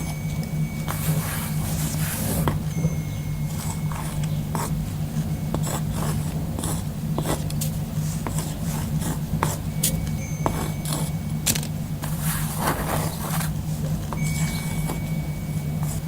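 Writing on cork: irregular scratchy strokes of a writing tool dragged across the cork surface, in quick clusters with short pauses between them.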